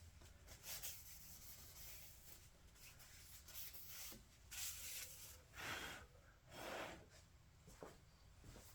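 Faint wiping of a machined metal surface with an alcohol-dampened cloth, a few brief rubbing strokes in the second half, to clear away grit.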